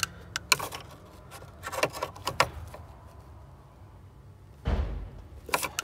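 Hand work on a car's engine air intake after fitting a mass airflow sensor: a series of sharp clicks and knocks as parts are handled, with a heavier thump near the end.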